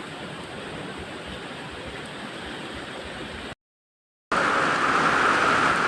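Steady rushing noise of heavy rain and running water. About three and a half seconds in, the sound drops out for a moment, then comes back louder with a steady high hum through the noise.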